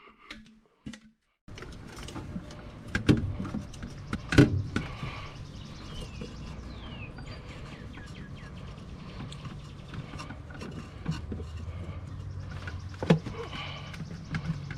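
A few sharp knocks and clatter of intake parts being handled and fitted in a car's engine bay, over a steady low background hum with faint bird chirps. The first second and a half is near silence.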